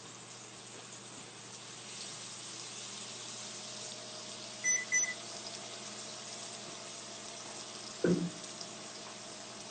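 Steaks searing in a hot pan on high heat: a steady sizzle that grows a little louder about two seconds in. Two short electronic beeps come about halfway through, and a single low thump comes near the end.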